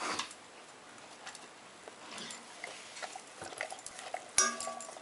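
A dog licking and nosing at a nearly empty stainless steel food bowl, making small clinks and knocks against the metal. About four and a half seconds in, a louder clang sets the bowl ringing briefly.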